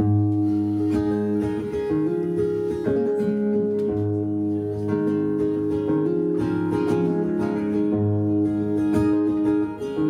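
Solo acoustic guitar playing an instrumental intro: strummed chords ringing out, changing every couple of seconds, with no singing yet.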